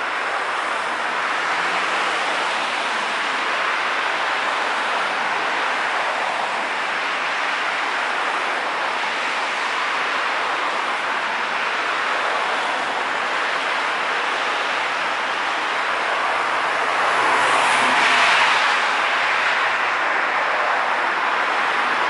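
Cars passing on a wet road: a continuous hiss of tyres on wet asphalt with engine noise, swelling louder as one car passes close late on.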